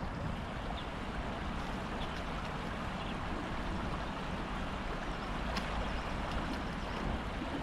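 Shallow river water flowing steadily over stones, an even rushing sound, with a few faint light ticks.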